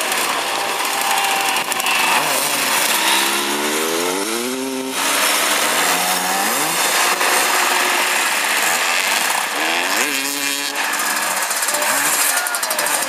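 Motoball motorcycle engines running and revving on the pitch, with the revs rising sharply about four seconds in and again about ten seconds in.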